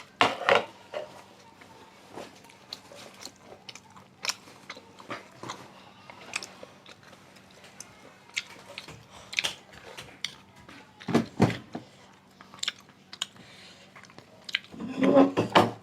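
A person eating spicy stir-fried beef tripe, chewing and biting with scattered small clicks and mouth smacks, broken by a few louder short vocal sounds about eleven seconds in and near the end.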